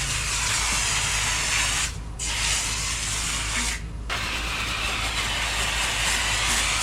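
Water spraying steadily from a hose, with two short breaks about two and four seconds in, over a low steady hum.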